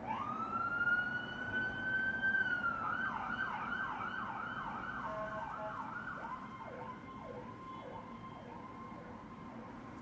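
Emergency vehicle siren: it winds up and holds a steady wail for about two seconds, then switches to a fast up-and-down yelp, with a second, lower yelping tone joining about halfway through before both fade.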